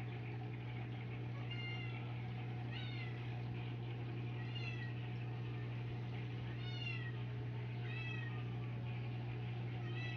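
A cat meowing repeatedly: about six short, high meows a second or two apart, each falling in pitch, over a steady low hum from the aquarium equipment.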